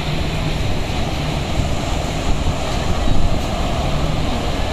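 Sea surf washing onto a sandy beach, with wind buffeting the microphone as a steady low rumble.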